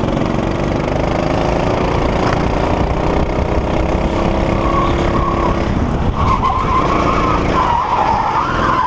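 Go-kart engine running under throttle with wind buffeting the onboard camera, its pitch rising and falling through the corners. From about six seconds in a wavering tyre squeal grows louder as the kart is hit from behind and starts to spin.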